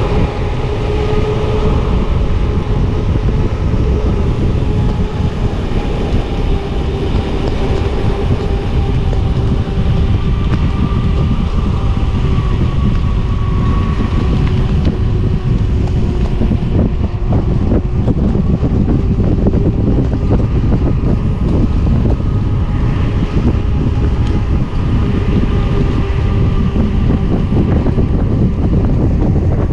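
Heavy wind buffeting on the microphone while riding a mountain bike, with a steady hum of a few held tones running underneath.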